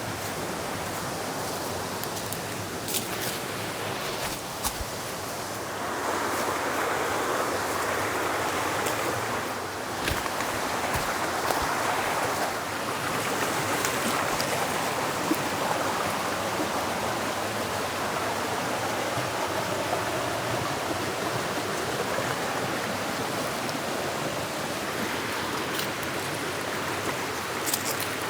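Creek water rushing steadily over rocks and small cascades, getting somewhat louder about six seconds in, with a few sharp clicks and knocks.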